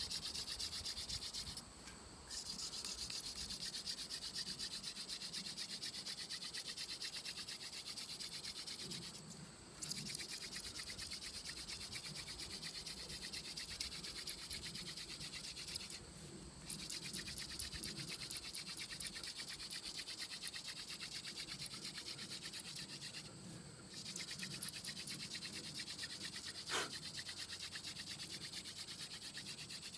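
Wooden hand-drill spindle twirled fast between the palms, grinding in the notch of a wooden hearth board as a rapid, even rubbing to work up an ember by friction. The rubbing breaks off briefly four times, about every seven seconds, as the hands run back up the spindle, and there is a single sharp click near the end.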